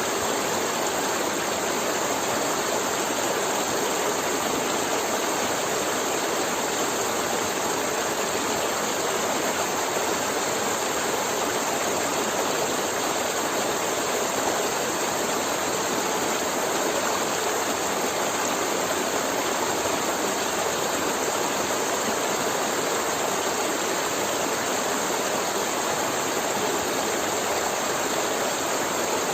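Forest river flowing over rocks, a steady rushing and gurgling of water.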